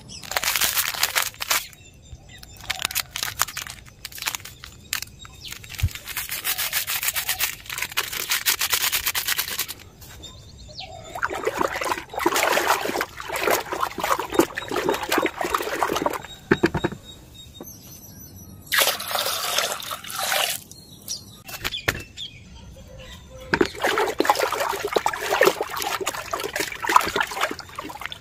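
A wooden stick stirring liquid in a plastic bucket: sloshing and splashing in several bursts of a few seconds, with short pauses between, as coffee powder and kitchen waste are mixed into water.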